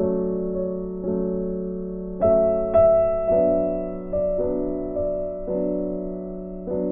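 Background music played on piano: slow, gentle chords, each struck and left to fade, a new one about every half second to a second.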